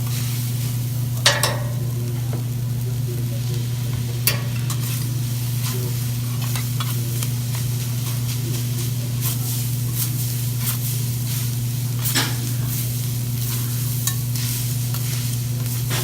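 Food sizzling and frying on a hot griddle, with a steady low hum underneath and a few sharp metallic clicks of cooking utensils.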